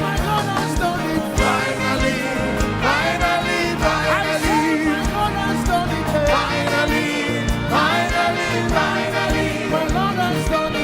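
Live gospel praise music: a band playing a steady beat while voices sing over it.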